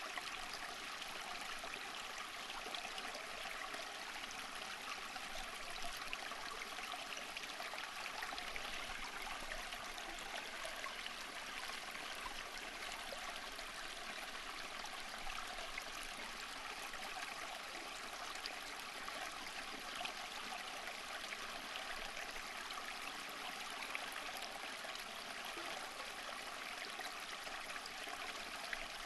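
Running water flowing steadily, an even rush with fine splashing detail and no pauses or changes.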